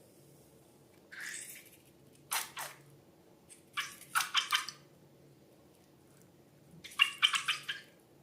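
Wet slime sounds, squelching and dripping, in four short bursts.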